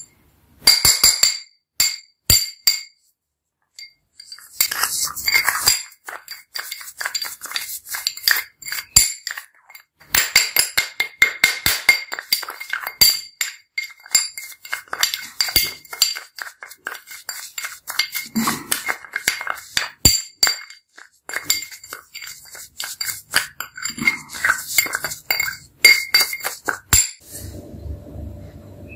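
Metal spoon clinking and scraping against a ribbed glass bowl while stirring a thick paste, in rapid repeated strokes with a ringing note from the glass. There are brief pauses a few seconds in and about ten seconds in, and the stirring stops near the end.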